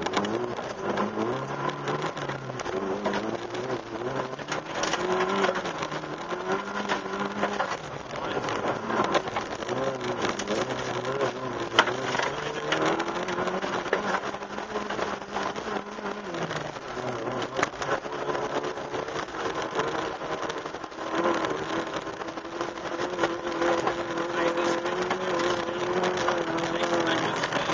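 Opel Astra GSi rally car's four-cylinder engine heard from on board, revving hard, rising and falling again and again through gear changes, with frequent sharp clicks and knocks from the rough dirt stage.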